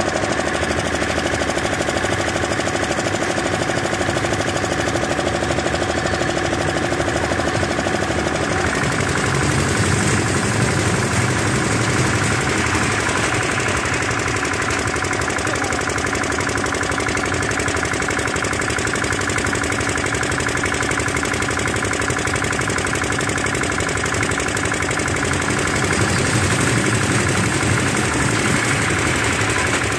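An engine running steadily; the sound becomes deeper and fuller about nine seconds in.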